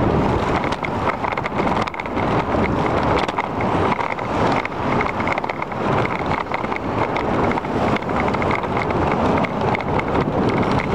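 Steady wind buffeting the microphone of a camera on a moving bicycle, with small knocks from the rough pavement and a light, regular ticking.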